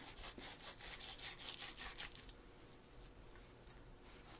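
A knife sawing back and forth through cooked whole chicken, a faint quick rasping of strokes that is strongest in the first two seconds and lighter after.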